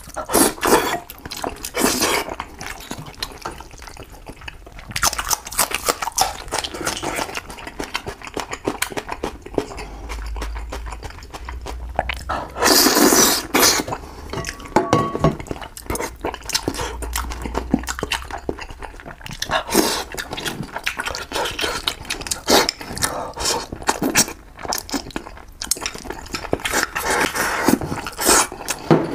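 Close-miked eating sounds of a person eating fish in chili sauce: wet chewing, lip smacks and slurps in a string of short irregular clicks and bursts.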